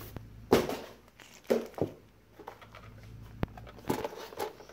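Plastic wrap and foam packing rustling and crinkling in short handfuls as a gauge panel is unpacked, with a sharp click about three and a half seconds in.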